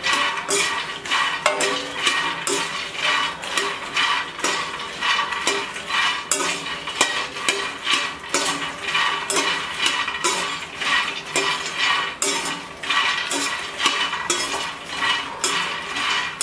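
Perforated steel slotted spoon scraping and clinking against a stainless steel kadai as puffed lotus seeds (phool makhana) are stirred without pause, in a quick, steady rhythm with a metallic ring. The seeds are being roasted in a little ghee on low heat until they turn brown and crunchy.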